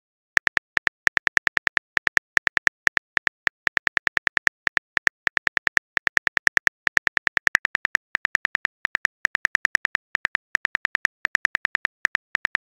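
Phone keyboard click sound effect, one crisp click per letter as a text message is typed, several clicks a second in uneven runs.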